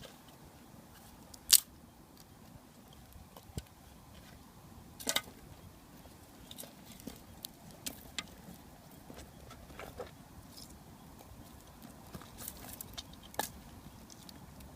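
Scattered sharp cracks and scrapes from lighting dry grass with a ferrocerium rod (metal match), the loudest about one and a half seconds in and another around five seconds.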